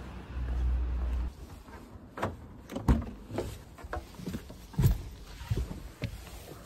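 Small knocks and clicks of someone settling into a car, handling a bag strap and seatbelt, with a low rumble in the first second or so.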